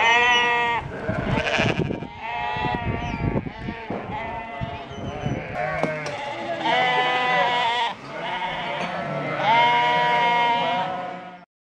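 A flock of sheep bleating, one long call after another every second or two, the calls sometimes overlapping; the sound cuts off suddenly near the end.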